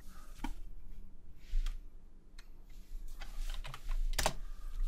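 A few separate keystrokes on a computer keyboard, spaced out, with the loudest key press about four seconds in.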